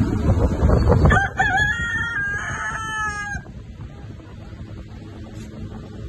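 A rooster crowing once, a single crow lasting about two seconds, after about a second of loud low noise.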